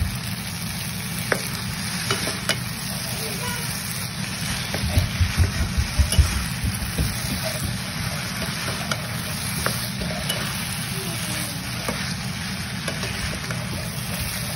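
Rice noodles and vegetables sizzling in a nonstick frying pan while being stirred and tossed with a plastic turner, with scattered scrapes and clicks of the turner against the pan. A run of low knocks comes about five to six seconds in.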